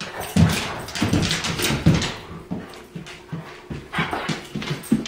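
A New Guinea singing dog whimpering and huffing in short, irregular spurts, several a second.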